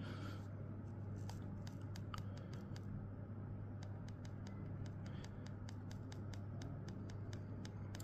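Rapid, faint clicking of the Flipper Zero's D-pad button pressed over and over, about four clicks a second, over a low steady hum.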